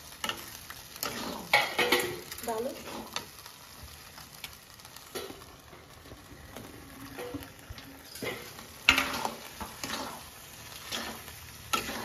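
Metal spatula stirring and scraping mushroom chilli around a metal kadhai, in irregular strokes over a faint sizzle of frying. The loudest scrape comes about nine seconds in.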